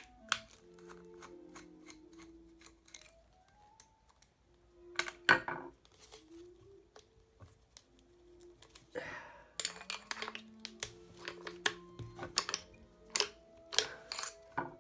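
Clicks, taps and knocks of plastic tubing and brass hose fittings being handled and pulled apart, over soft background music.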